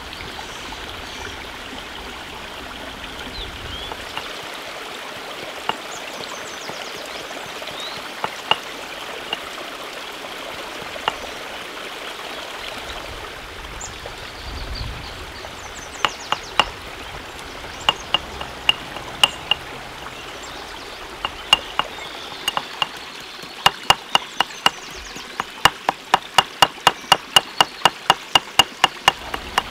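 Stone pestle striking a stone mortar while pounding chillies and aromatics into rendang spice paste: sharp knocks that come only now and then at first, then from about halfway on grow frequent, settling into steady pounding of about three strikes a second near the end. A steady rush of flowing stream water runs underneath.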